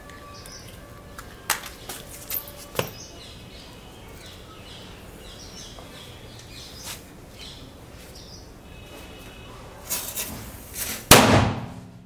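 A few sharp clicks and knocks as a metal pipe toy gun is handled on a wooden board, then a loud sudden burst about eleven seconds in that dies away in under a second.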